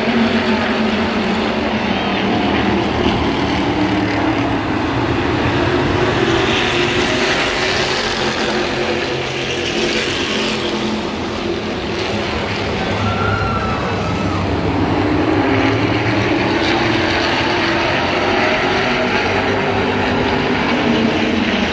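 A pack of spec late model race cars running at racing speed, their V8 engines merging into one steady drone. The sound grows brighter around the middle of the stretch as the pack comes through the turn nearby, then evens out again.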